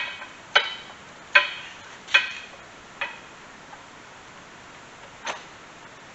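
Sharp metal-on-metal clinks from hydraulic cylinder parts being worked together, each with a short ring: five in quick succession, the first four loudest, then one more near the end.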